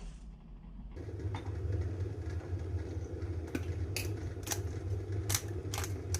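Several sharp clinks of kitchen utensils and dishes over a steady low hum, starting about a second in.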